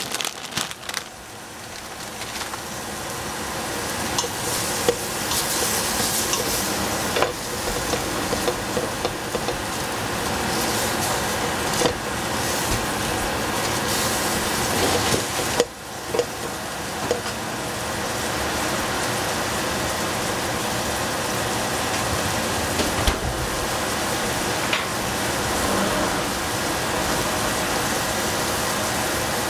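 Food stir-frying in a pot: a steady sizzle that grows louder over the first few seconds, with scattered clicks and scrapes of a utensil stirring against the pot.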